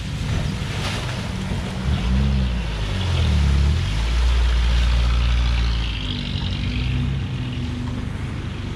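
Classic 1950s saloon car's engine running as the car drives through a shallow ford, its wheels throwing up splashing water. The engine is loudest as the car passes, about three to six seconds in, then fades to a steady hum.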